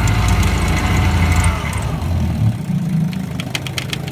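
1957 Johnson 7.5 hp two-stroke twin outboard motor running in reverse, then throttled back about a second and a half in, settling to a lower, quieter run.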